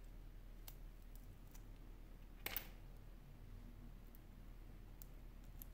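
Faint light clicks from a small metal part of a Sony Xperia Z3 Compact being handled and worked between the fingers, with one louder scratchy click about halfway through.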